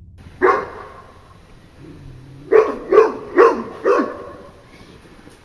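A dog barking: a single bark, then after a pause four barks in quick succession, about two a second, and one more at the end.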